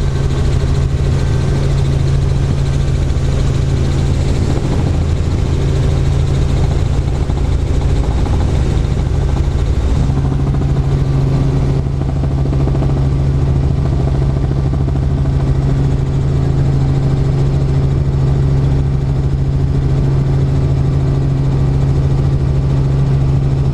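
Light helicopter in flight, heard from inside its cabin: a loud, steady drone of engine and rotors with a low hum, its tone shifting slightly about ten seconds in.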